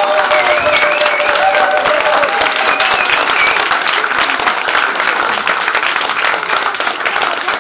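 Theatre audience applauding, a dense steady clapping, with a few voices cheering over it in the first three seconds or so.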